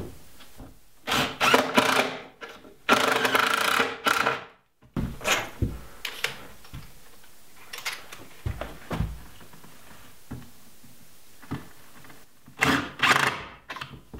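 Cordless drill driving 2.5-inch wood screws through a plywood tabletop into the board below, in several short bursts of motor whine, the longest about a second, with clicks and handling noise between them.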